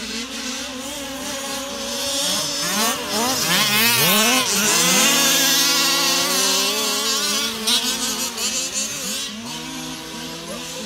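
Two-stroke engines of several 1/5-scale petrol RC cars revving and easing off, with pitch swooping up and down as they race. They grow loudest as two cars pass close, about four to seven seconds in, then fade back.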